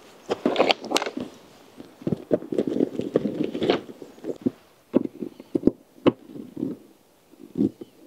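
Irregular rustling and handling noise as tent parts are fitted together, with a few sharp clicks or knocks about five to six seconds in.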